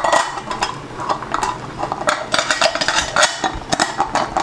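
Round metal base of a table-top chandelier centerpiece being turned by hand onto its threaded metal pole, giving quick irregular metallic clinks and scrapes. The rattle is a sign the joint is not yet screwed down tight.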